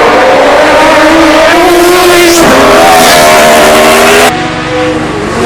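Road-racing motorcycle engines at high revs, heard in short clips cut together. The engine pitch climbs and jumps at cuts about two and a half and four seconds in, and it is a little quieter over the last second.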